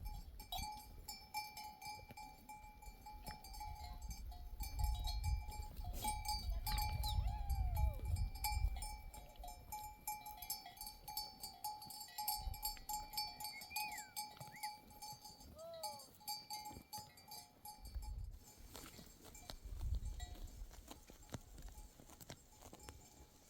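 Bells on a flock of sheep ringing and clanking steadily as the animals move, with a few short bleats.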